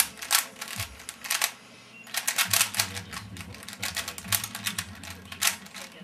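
A 3x3 Rubik's cube being turned at speedsolving pace: rapid bursts of clicking and clacking layer turns, with a brief pause about a second and a half in before the fast turning resumes.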